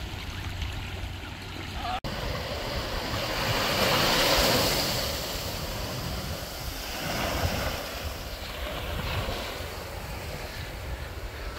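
Small waves washing up a sandy beach, the surf swelling and falling back in washes, loudest about four seconds in, with wind buffeting the microphone.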